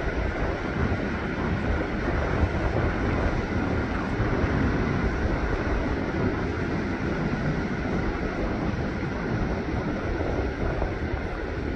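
Steady wind buffeting the microphone over the continuous wash of ocean surf breaking on the beach.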